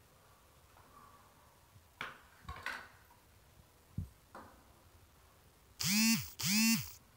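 Hand-threading a chrome shower fitting into a wall valve: light scrapes and a click, then two loud squeaks near the end as the fitting is twisted in, each about half a second with a pitch that rises and falls.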